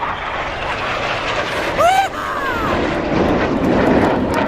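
Jet noise from Red Arrows BAE Hawk T1 display jets flying past, a steady roar that grows louder about three seconds in. A brief rising-and-falling vocal call sounds about two seconds in.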